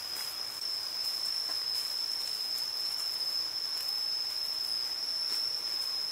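Insects droning in the forest: one steady, high-pitched, unbroken tone over a faint hiss.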